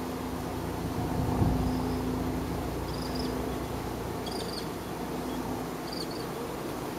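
Honey bees buzzing at a crowded hive entrance, a steady hum with a louder swell of buzzing about a second and a half in. A few faint, short high chirps come through over it.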